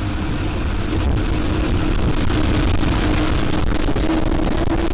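Tornado-force wind roaring over the microphone: a loud, steady rush with a faint steady tone running beneath it.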